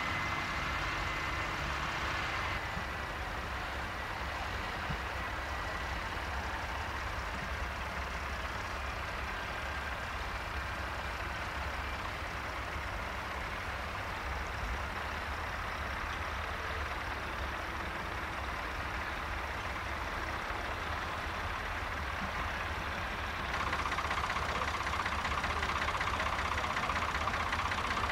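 Diesel tractor engines working under load as they pull reversible ploughs through a field: a Claas, then a John Deere, then an older blue Ford. The sound shifts abruptly about two and a half seconds in, and again a few seconds before the end, where a louder engine note with a fast, even pulse takes over.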